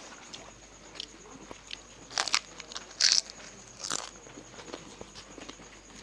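Mouth sounds of eating fuchka (pani puri): crisp hollow puri shells crunching as they are bitten and chewed. There are three louder crunches about two, three and four seconds in, with small crackles between them.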